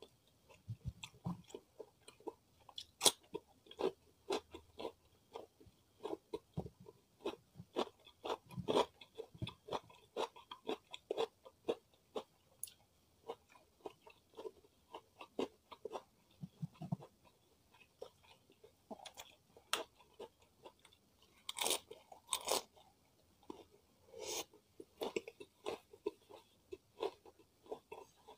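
Close-miked chewing of crispy fried chicken: irregular crisp crunches and wet chewing sounds, with a cluster of louder crunches about 22 seconds in.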